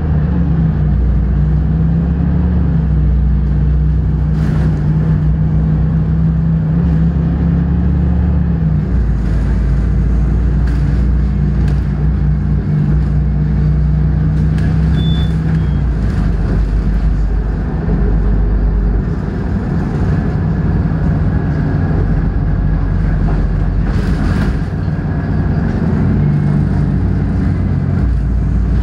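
Inside a moving articulated city bus: steady engine drone and road noise, the engine's low hum shifting in pitch a few times as it changes speed, with a few brief clicks and rattles.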